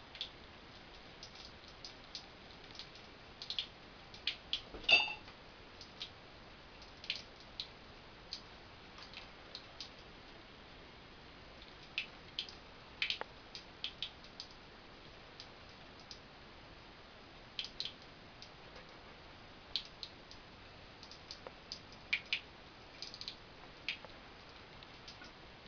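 Small water drips and splashes at irregular intervals, as cats paw at water, with a louder brief splash about five seconds in.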